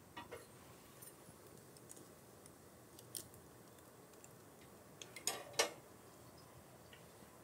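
A few short, sharp clicks and light knocks from kitchen food preparation, spaced out over several seconds, the loudest pair about five seconds in.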